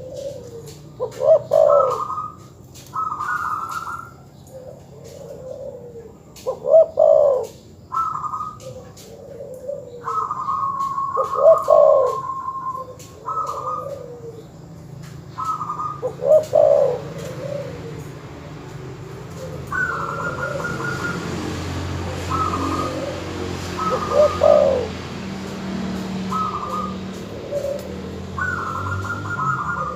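Doves calling over and over, higher trilled notes alternating with lower coos at uneven intervals of a second or two. A low steady hum comes up in the second half.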